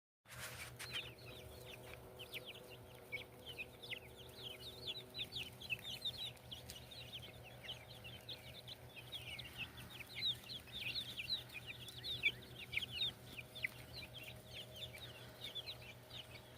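A flock of backyard chickens clucking and peeping, with many short, high, falling chirps overlapping throughout. A steady low hum runs underneath.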